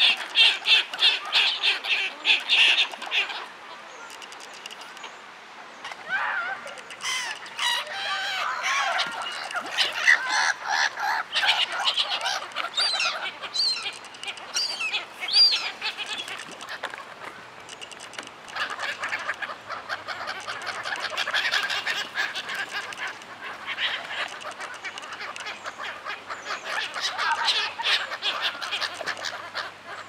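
A flock of black-headed gulls calling as they squabble over food on the water. The harsh calls come in quick repeated runs, busiest in the first three seconds and again in bursts after about six seconds.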